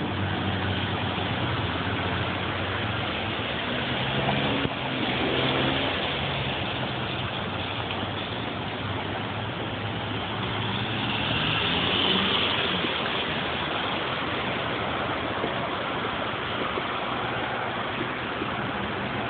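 Street traffic on rain-wet pavement: a steady hiss of tyres on the wet road with car engines humming, swelling as a car passes about twelve seconds in.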